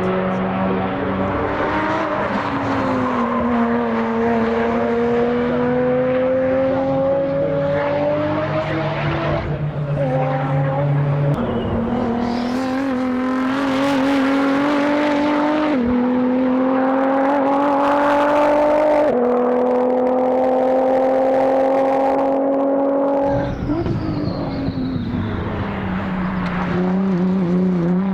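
Race car engines running hard on a circuit. One engine note climbs slowly for several seconds at a time and changes pitch abruptly a few times, with a second engine note underneath during the first half.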